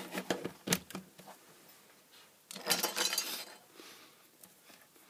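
Light clicks and clinks of handling, as a mains plug is pushed in and multimeter test leads are moved, with a rattly stretch of about a second midway.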